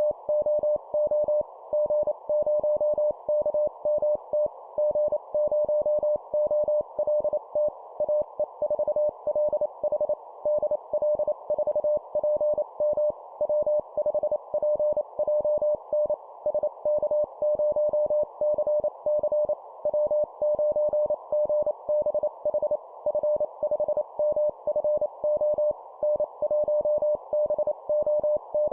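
Morse code (CW) call signs sent at 25 words per minute as a single mid-pitched beeping tone, keyed on and off in dits and dahs with short gaps between characters. The tone sits over a steady band of hiss, like a receiver's filtered noise.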